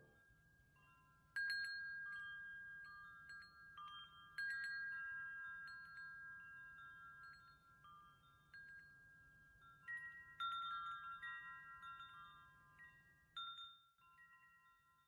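Wind chimes ringing softly: scattered strikes of several metallic pitches, each ringing on and fading away, with a small flurry of strikes about two-thirds of the way through.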